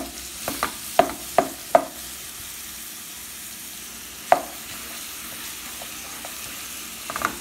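Broccoli and garlic sizzling in hot olive oil in a pot while being stirred. A utensil knocks sharply against the pot several times in the first two seconds, once more about four seconds in, and again near the end.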